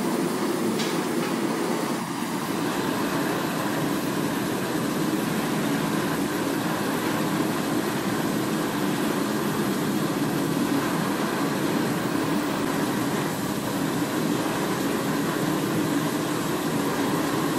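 Steady rushing noise of a lit blacksmith's forge fire with its air blast running, continuous and without rhythm.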